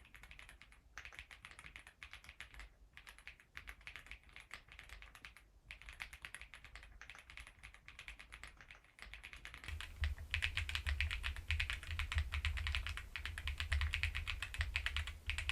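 Fast continuous typing on an Epomaker EK75 mechanical keyboard, a rapid stream of key clicks with short pauses. The typing becomes louder and fuller about two-thirds of the way through.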